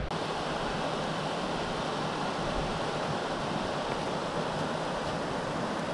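Creek water rushing over rocks in a small cascade: a steady, even rush.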